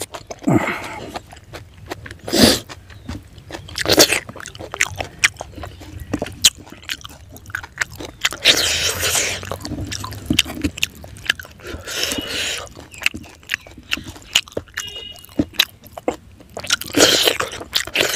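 Close-up eating sounds: wet chewing and lip smacks, with fingers mixing rice and fried fish on a banana leaf. Many sharp clicks throughout, with longer noisy stretches of chewing or sucking near the middle.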